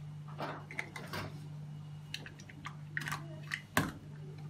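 Hands handling plastic reagent bottles, a plastic bag and tubing: scattered light clicks and rustles, with one sharp plastic click near the end. A steady low hum runs underneath.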